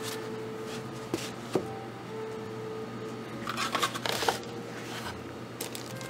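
Hands handling packaging: a foam insert, cardboard box flaps and plastic-wrapped parts rustling and crinkling. There are two sharp clicks between one and two seconds in, and the loudest rustle comes in a burst around four seconds in.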